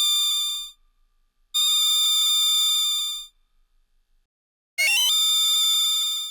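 Analog synthesizer tones, three separate held notes rich in overtones. The first fades out under a second in and the second sounds for under two seconds in the middle. The third starts near the end with a quick upward sweep in steps, then holds steady.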